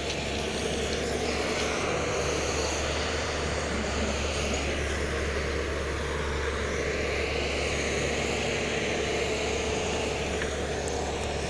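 Tata Hitachi hydraulic excavator's diesel engine running with a steady drone while it works the embankment.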